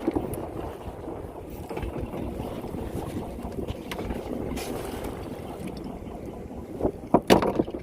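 Working noise aboard a small fishing boat at sea during net hauling: a steady rush of wind and water with scattered knocks, and a few louder thumps near the end.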